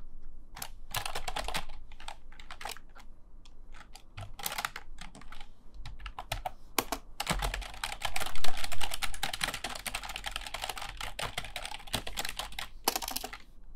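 Fast typing on a computer keyboard: keys clicking in short flurries, then a long unbroken run of rapid keystrokes through the second half, loudest just after the run begins.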